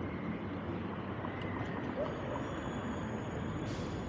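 Steady rushing wind and road noise on a small action camera's microphone while cycling along a city street, with a short hiss near the end.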